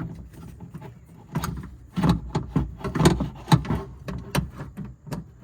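Irregular knocks, clunks and rattles of a window regulator motor and metal parts bumping against the inside of a car door's sheet-metal shell as the motor is worked into place.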